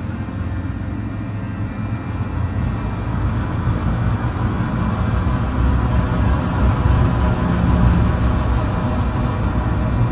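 Dark ambient background music: a low, rumbling drone with faint sustained tones above it, swelling slightly louder about halfway through.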